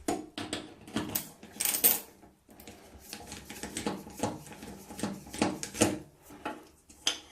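A small screw being worked out of a metal bathtub drain plate: a quick, irregular run of small metallic clicks and scrapes.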